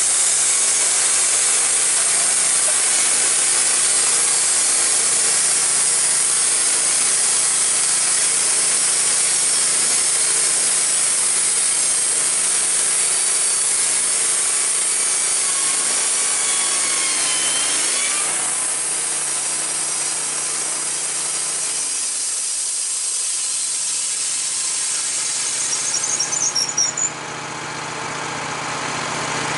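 Wood-Mizer LT15 bandsaw mill sawing a board off a white oak log, with the band blade's steady high hiss over the mill's gasoline engine working under load. About two-thirds of the way through, the cutting noise drops away and leaves the engine running. Near the end come a few quick squeaks as the sawn board is slid off the log.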